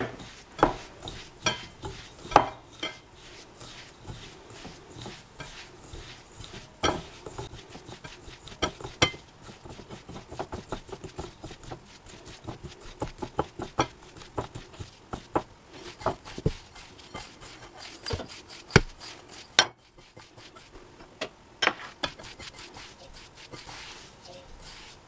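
Hands squeezing and rubbing crumbly bath bomb mixture in white bowls, working food colouring in: a soft grainy rustle broken by irregular clicks and knocks of fingers against the bowl sides.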